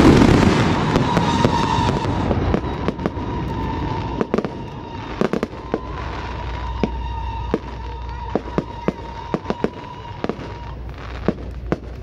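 Fireworks finale dying away: the dense wash of the last barrage fades over the first couple of seconds, leaving scattered sharp bangs and crackles from the remaining shells.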